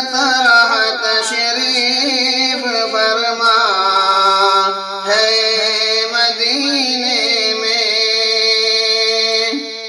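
A man singing an Urdu naat unaccompanied by words the recogniser could catch: long, drawn-out notes that waver and slide in ornamented melisma. His voice fades out just before the end.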